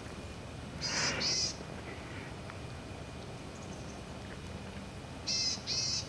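Boreal chickadees calling: two quick high notes about a second in, then another pair near the end.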